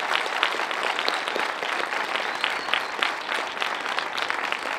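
A crowd applauding steadily, with many individual hand claps standing out.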